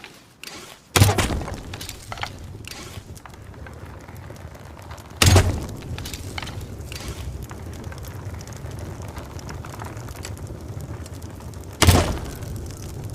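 Compound bow being shot three times, each shot a sudden loud crack with a short decay: about a second in, about four seconds later, and again near the end. A steady low rumble runs underneath between the shots.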